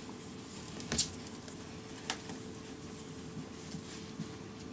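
A rabbit nosing and brushing against the camera at close range: scattered soft clicks and rustles, with a sharper click about a second in, the loudest, and another about two seconds in, over a faint steady hum.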